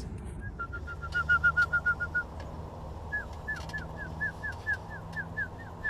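A small bird singing: a quick run of short whistled notes on one pitch, then, after a pause, a slower series of down-slurred whistles, about three a second. A steady low hum runs underneath.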